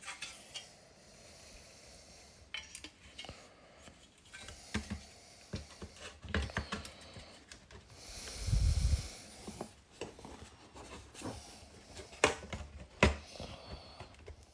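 Small plastic and metal parts of a car multi-function display unit clicking and tapping as it is handled and taken apart. There is a louder rustle and thump about eight to nine seconds in.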